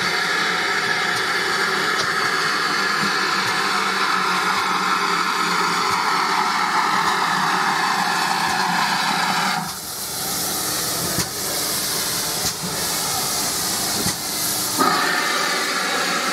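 GWR Manor Class 4-6-0 steam locomotive no. 7822 arriving along the platform with its train, steam hissing steadily. Just under ten seconds in, the sound changes abruptly to a higher, sharper hiss.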